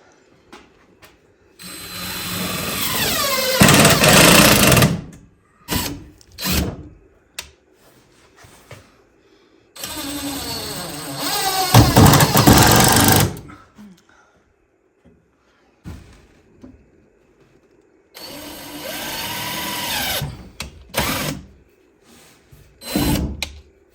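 Power drill running in three long runs of a few seconds each, with short blips between them, its pitch rising as it spins up.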